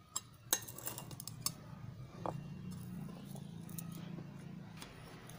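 A metal spoon clinking against a bowl of spiced lemon pieces: a few sharp clinks in the first second and a half, one more a little after two seconds, then a steady low hum.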